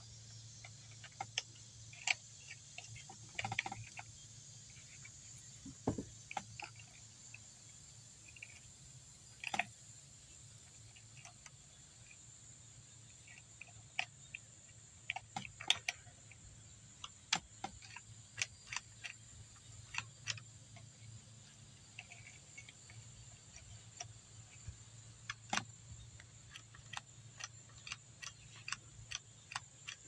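Irregular small clicks and taps of hands working plastic parts on a Husqvarna 324L string trimmer, fitting the fuel lines and the grommet into the fuel tank under the new carburetor. A steady high drone of insects runs underneath.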